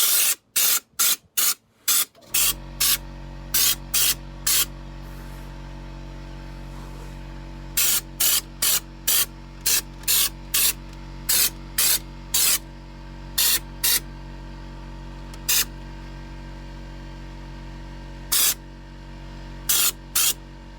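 Underseal being sprayed in many short, sharp hissing bursts of a fraction of a second each, coming in irregular clusters. A steady hum starts about two seconds in and runs underneath.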